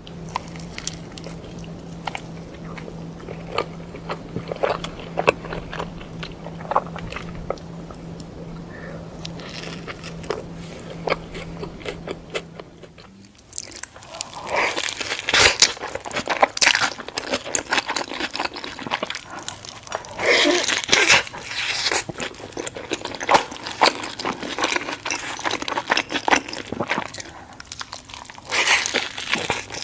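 Close-up biting and chewing of a burger sandwich: wet mouth sounds and crisp crunches. A low steady hum under the first half stops about halfway, and the chewing and crunching turn louder and denser from then on.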